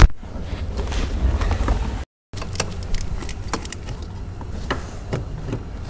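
Hands working wiring and plastic trim under a car dashboard: rustling and handling noise with scattered small plastic clicks and knocks as a wiring connector clip is worked loose.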